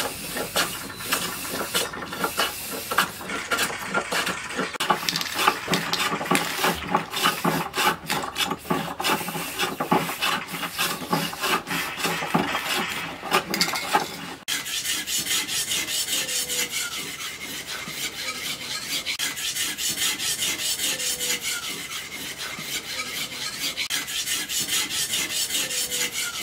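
For the first half, a busy run of quick metal scraping and clicking strokes. Then, after a sudden change, a forged bearing-steel knife blade is drawn back and forth over a sharpening stone in steady, even, hissing strokes to sharpen its edge.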